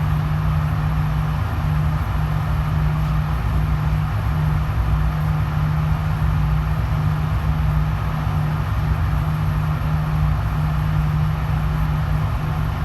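Steady low mechanical drone with a constant low hum and rumble underneath, unchanging throughout; no gunshots.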